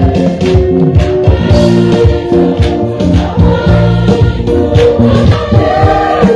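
Church choir singing a Kirundi communion hymn, many voices together, with a regular percussive beat.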